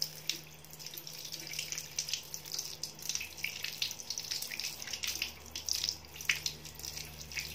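Tap water running over a hand and fingers and splashing onto a tiled floor, as henna paste is rinsed off the fingertips, with irregular small splashes throughout.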